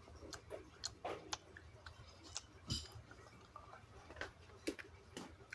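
Close-miked chewing: a person eating, with irregular wet mouth clicks and lip smacks and a brief hiss a little under three seconds in.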